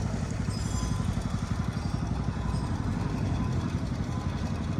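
A motor running steadily with an even, low, rapidly fluttering rumble.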